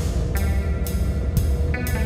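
Background music with a steady beat, about two strokes a second, over a heavy bass.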